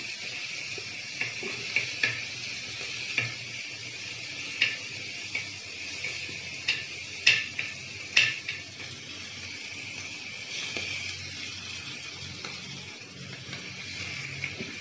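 Fish pota frying in hot oil in a kadhai: a steady sizzle with scattered sharp pops of spattering oil, the loudest two about seven and eight seconds in. Water in the fish makes the oil spit.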